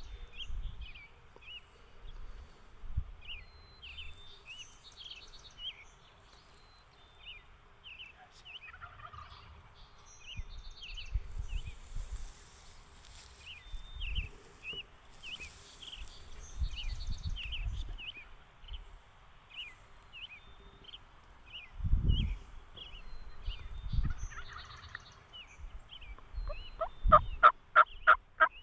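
A wild turkey gobbler gobbling once near the end, a loud rapid rattling call. Throughout, a small songbird chirps repeatedly, about two notes a second, and there are a few low thumps.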